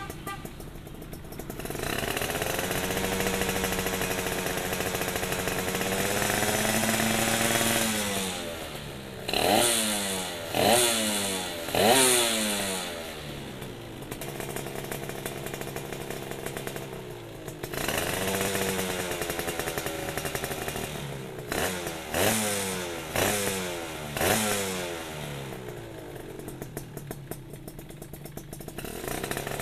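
Suzuki Satria 'Hiu' single-cylinder two-stroke motorcycle engine with a CMS ABRT20 underbelly exhaust, revved while standing. It is held at raised revs for several seconds, then blipped sharply three times and drops back to idle. The same pattern repeats: a held rev, three more quick blips, then idle.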